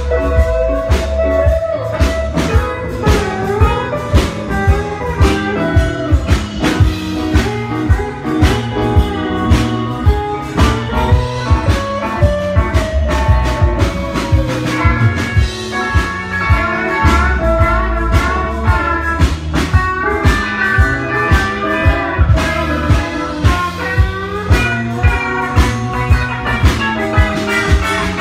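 Live country band playing an instrumental passage: an electric guitar plays a lead line with bent notes over a drum kit keeping a steady beat.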